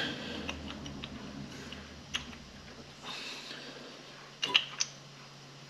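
Faint metallic clicks and taps of a piston and its oiled wrist pin being worked onto the connecting rod by hand, with a sharper cluster of clicks about four and a half seconds in, over a faint steady hum.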